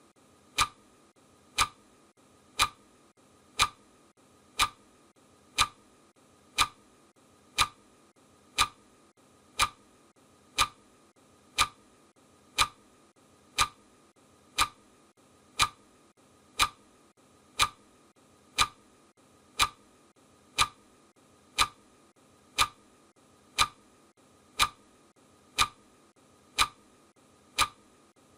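Clock ticking steadily: a loud tick about once a second with a softer tick between, a regular tick-tock.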